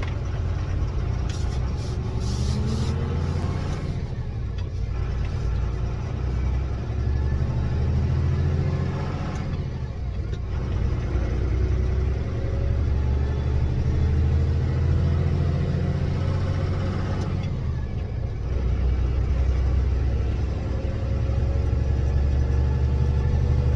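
2007 Ford F650's 5.9 Cummins diesel accelerating through the gears, its turbo running without the silencer ring. The engine's pitch climbs in each gear, with a brief drop at each of three upshifts about 4, 10 and 18 seconds in.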